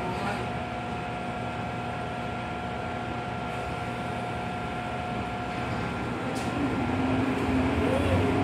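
Interior of an MTR M-train subway car standing with its doors shut: a steady hum of ventilation and onboard equipment with faint held tones. Over the last couple of seconds the noise grows and a low motor tone sets in as the train begins to pull away.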